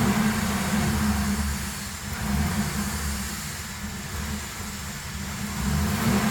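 A 2007 Ford Crown Victoria's V8 engine running, a low rumble that swells and eases every couple of seconds.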